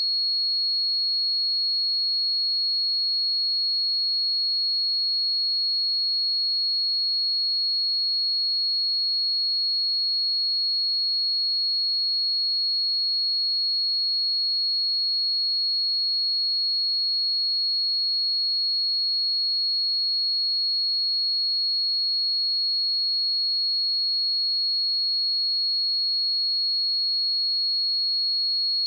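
Pure 4321 Hz sine-wave test tone: one steady high-pitched tone that holds unchanged at constant volume.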